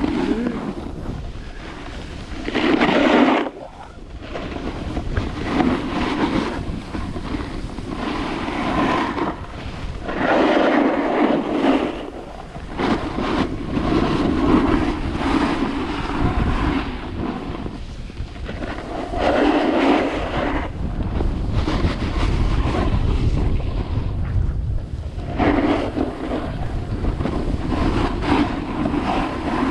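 Wind buffeting the microphone while sliding down a snowy slope, with a rushing, scraping hiss of snow that swells in surges every few seconds.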